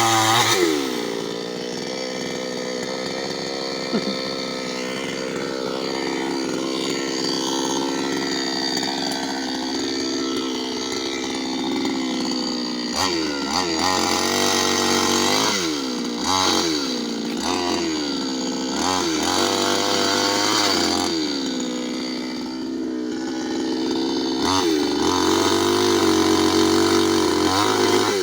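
New West 598X two-stroke chainsaw cutting into a large tree. Its engine speed drops about half a second in and holds steady under load. From about halfway it sags and picks up again several times, then rises near the end.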